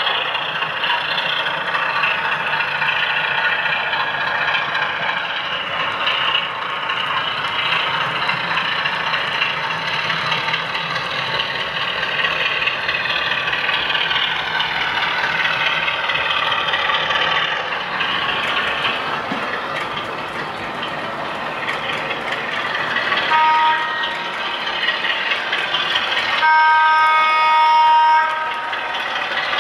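ESU LokSound DCC sound decoder in an OO gauge Class 33/1 model, playing the Class 33's Sulzer diesel engine running under power through the model's small speaker. Near the end the decoder sounds the two-tone warning horn twice, the second blast longer.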